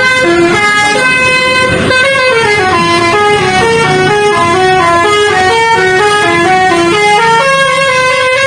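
Bus 'telolet basuri' musical horn playing a tune of short stepped notes, one after another, then settling on a long held note near the end.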